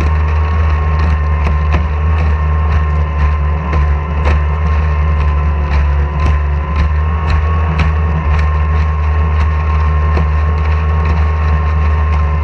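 Racing outboard engine on a small hydroplane running steadily at low revs with no revving, joined by scattered sharp ticks about once or twice a second.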